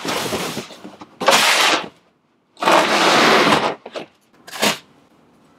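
Large cardboard shipping boxes being dragged and slid against each other: a few long, rough cardboard scrapes, each about a second, with a shorter one near the end.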